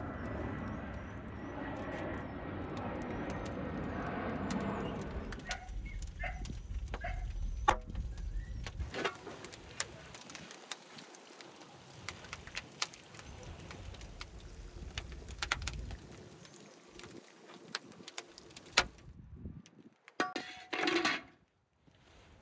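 Lamb sizzling in a hot cast-iron pan for about five seconds as its lid comes off, then a wood fire crackling with scattered sharp snaps. Near the end comes a short grating scrape as the heavy pan is dragged out over the oven's stone floor.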